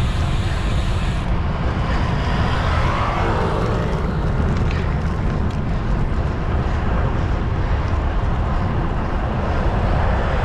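Heavy wind noise rumbling steadily across the microphone while riding a road bicycle into a strong headwind.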